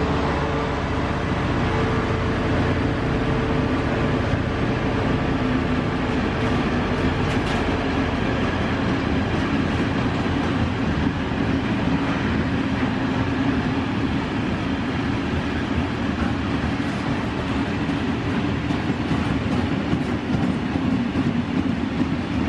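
Freight train of bogie hopper wagons rolling past at speed: a steady rumble and clatter of steel wheels on the rails.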